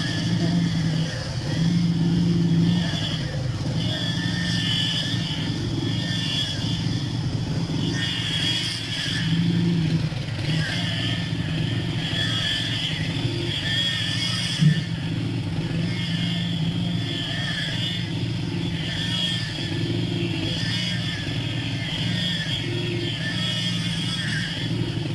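An engine running steadily, its note swelling slightly now and then, with a single short knock about halfway through.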